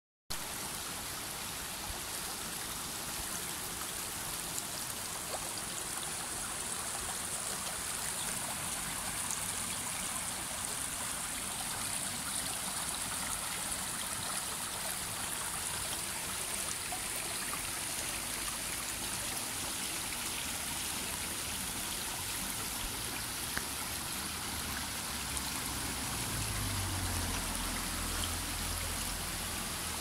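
Shallow mountain stream running over a bed of stones and pebbles: a steady rush and trickle of water. A low rumble joins in near the end.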